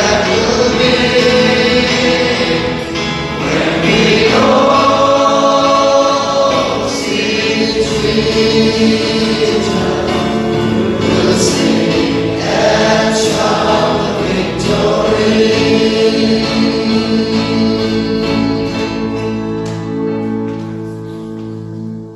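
Choir singing a gospel song with long held notes; the singing fades out near the end.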